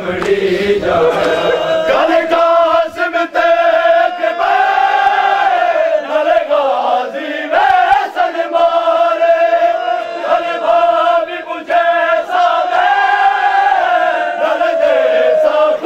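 Men chanting a noha, a Shia mourning elegy, together in long held lines, with sharp slaps now and then from hands striking chests in matam.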